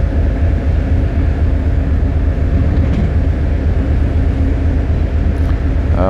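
A cruise ship under way makes a steady low rumble, with a faint, even hum from its engines over it.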